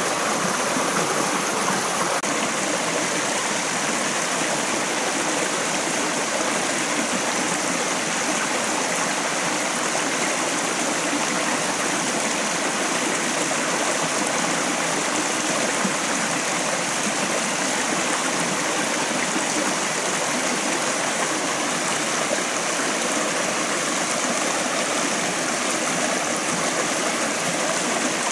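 Shallow rocky forest stream flowing over small cascades, a steady, even wash of water sound.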